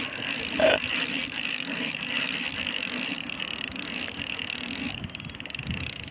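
Spinning fishing reel being cranked, its gears and rotor whirring steadily as line is wound in, easing off near the end. A brief louder sound stands out under a second in.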